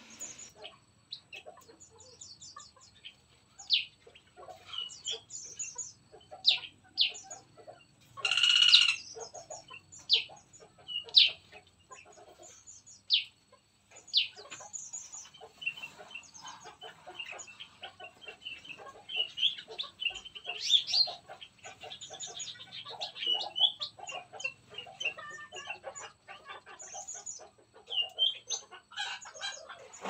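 Several songbirds chirping and calling in an aviary, with short sharp calls all through, one louder drawn-out call about eight seconds in, and a busier run of calls a little past two-thirds of the way.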